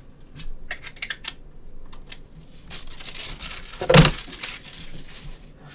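Clear plastic bag crinkling and rustling as it is handled, with a few light clicks early and one sharp knock about four seconds in.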